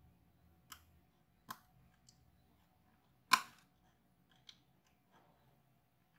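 Four small sharp clicks, the loudest about three seconds in: the WiFi card's antenna cable connectors being pressed back on inside an open laptop.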